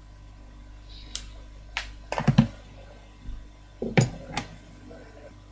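Scattered light clicks and taps of small hand tools handled on a repair bench, about six in all, some in quick pairs, over a low steady hum.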